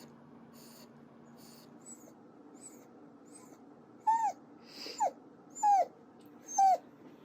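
An old dog with heart disease whimpering: four short, high cries, each falling in pitch, about one every second, starting about four seconds in.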